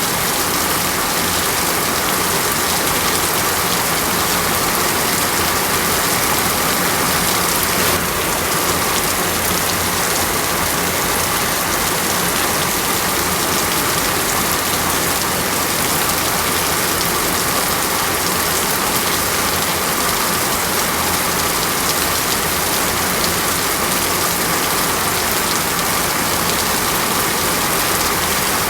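Heavy rainforest rain falling steadily: an even, unbroken hiss of downpour.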